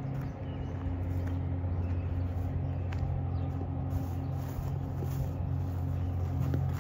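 Steady low engine drone with a constant hum, unchanging throughout.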